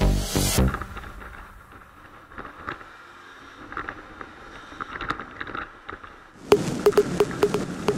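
Small single-cylinder moped engine running in traffic with road and wind noise. It is faint at first, then turns louder with rapid irregular ticking about six and a half seconds in. Electronic music cuts off within the first second.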